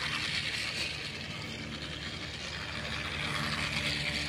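Battery-powered toy Thomas the Tank Engine train running around its plastic track: a steady whirr from its small motor and gears, with a faint low hum underneath.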